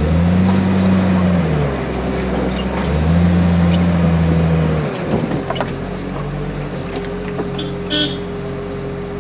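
Diesel engine of a hydraulic junkyard loader revving up twice under load as the boom swings, then settling back to a steady run about five seconds in. A short metallic squeak or clank near the end.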